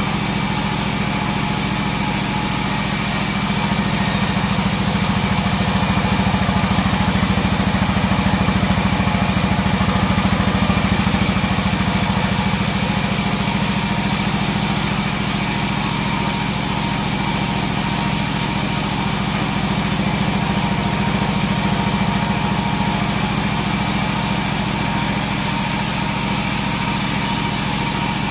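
Large sawmill bandsaw running steadily: a constant low machine hum with a faint thin whine above it, unbroken throughout.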